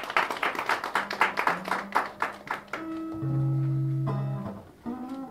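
A short round of clapping, then an acoustic guitar starts playing single held notes and a strum.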